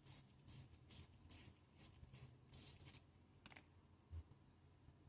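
Faint short scratchy rasps, about two a second, as the air pistol's piston with its new seal is worked into the cylinder by hand, then a single sharp click and a dull knock near the end.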